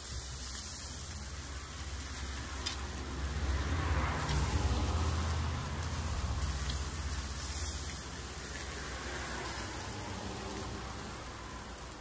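Steady hiss of beef and bell-pepper skewers sizzling on a tabletop grill, mixed with rain, with a low rumble that swells through the middle.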